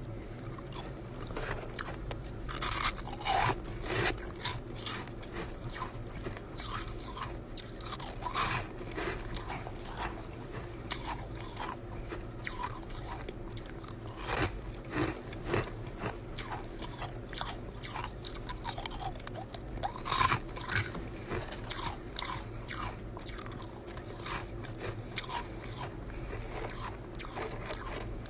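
Chest freezer frost ice being bitten and chewed: dense, crisp crunching throughout, with a few louder bites.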